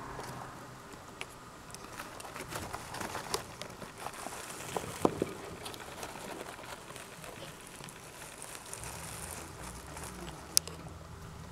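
Pet mice scurrying and rustling in shredded bedding: irregular soft crinkling and small scratchy clicks, with a sharper tap near the end.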